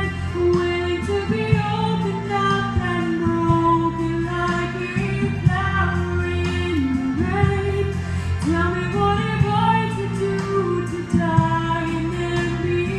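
A young woman singing a song through a handheld microphone and PA, holding long notes, over instrumental accompaniment with a steady beat.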